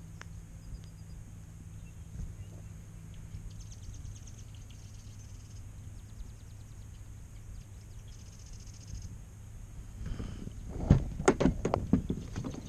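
Faint rapid high ticking for a few seconds in the middle, then a cluster of sharp knocks and clatter near the end as a largemouth bass is handled and laid on a plastic measuring board on the kayak.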